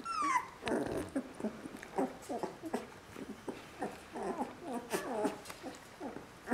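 Three-week-old border collie puppies whining and squeaking: a string of short, high-pitched squeals, the first sliding down in pitch.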